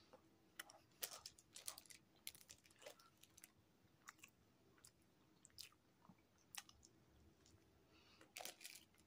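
Faint close-up chewing of a mouthful of bread dipped in burrito bean filling: small irregular clicks, with a slightly louder bite near the end.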